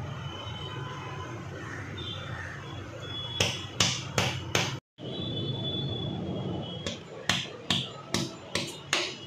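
A stainless steel tumbler knocking down on thick dough against a countertop as rounds are cut out with it: a run of sharp knocks, four about halfway through, then after a brief dropout about six more near the end.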